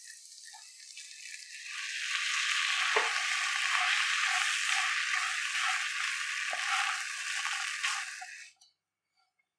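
Semiya upma sizzling in a pan while it is stirred, with two soft knocks of the utensil against the pan. The sizzle grows louder about two seconds in and cuts off suddenly near the end.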